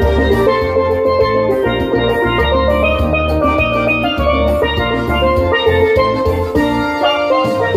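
Background music: a bright melody of pitched notes over a recurring bass beat.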